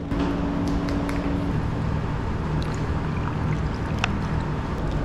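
Background music with a steady noise under it, as coffee is poured from a pouch over ice in a plastic cup.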